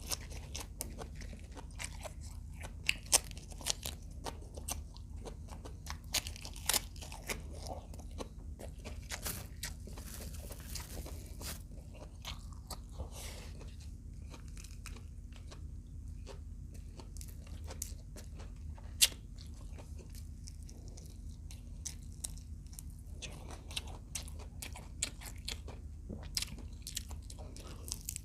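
Close chewing and crunching of fried adobo quail, crisp bites cracking sharply at irregular moments between stretches of softer chewing.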